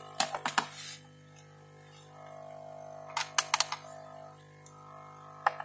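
Sharp clicks and taps from handling a hard plastic device, in three short clusters: a rapid run at the start, another about three seconds in, and a single click near the end, over a steady low drone.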